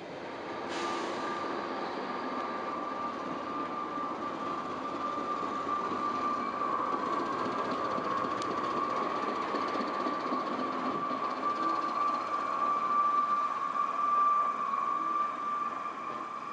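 A pair of Class 73 electro-diesel locomotives pulling away on their diesel engines, running with a steady high-pitched whine over the engine noise and growing louder.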